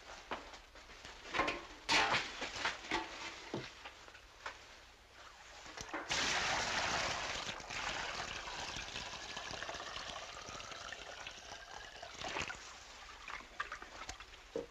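A few handling knocks and clatter, then about six seconds in water pours and splashes into a tub, starting suddenly and tailing off over several seconds, as a patched bicycle inner tube is put in water to check it for leaks.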